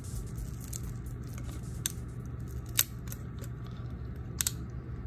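Small sharp clicks and taps of a metal opening tool and tweezers against an iPod Video's metal back plate as its battery is pried up off its adhesive: about four clicks, the loudest nearly three seconds in and two close together about four and a half seconds in, over a steady low hum.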